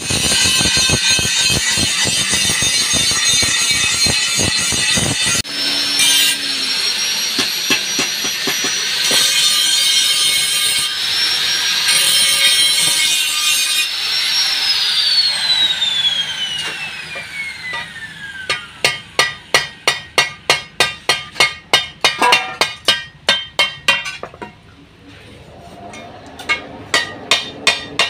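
A power tool's electric motor running with a high whine over dense noise, switched off about halfway through and winding down in pitch over several seconds. Then rapid hammer blows, about three or four a second, stop briefly and start again near the end.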